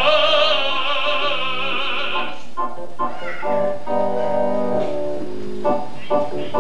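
Opera-style singing: one voice holds a long note with heavy vibrato for about two seconds, then the accompaniment carries on alone with sustained chords and a few short chord stabs near the end.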